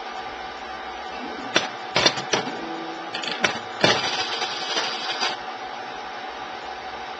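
Laboratory liquid-handling workcell (plate stacker and pipettor) running: a steady machine hum under a run of sharp mechanical clicks and clunks from about one and a half to four seconds in, then a short motor whir that stops about five seconds in.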